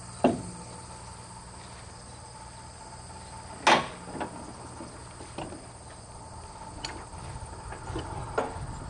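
Outdoor summer ambience with insects chirping steadily, broken by a few dull thumps, the loudest about three and a half seconds in.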